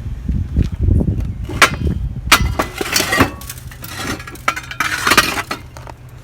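Brake rotors clanking and clinking against each other as they are handled, a string of sharp metal knocks over a low steady hum.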